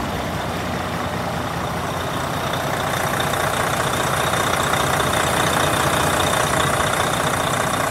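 2013 Freightliner Cascadia's diesel engine idling steadily, heard at the open engine bay. It grows louder and brighter about three seconds in.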